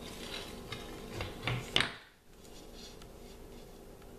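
Hands handling a bamboo frame on a granite countertop: light rubbing and a few small knocks in the first two seconds, then only quiet room tone.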